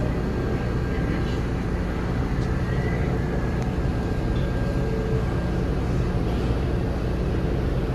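New York City subway train rumbling into the station, a steady, loud low rumble of wheels and motors on the track.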